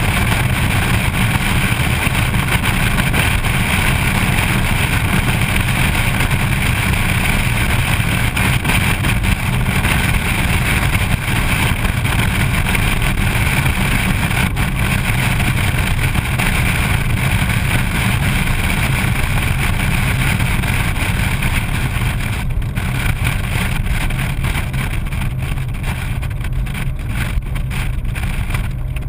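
Car driving steadily at road speed: a continuous low drone of engine, tyre and wind noise, heard from a camera mounted outside on the hood.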